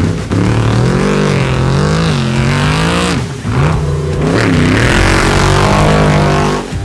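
Off-road race truck engine revving hard, its pitch rising and falling several times as the throttle is lifted and reapplied over the rough track, with a short lift about three seconds in. Revs are then held high until the sound drops away near the end.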